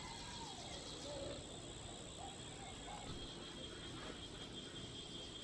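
Insects chirring faintly and steadily as a high, thin drone, with faint distant voices now and then.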